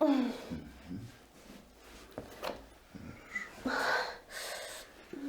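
A woman crying out with a short falling "ah" of discomfort as a muscle is worked, then gasping and breathing hard, with a single click about halfway through.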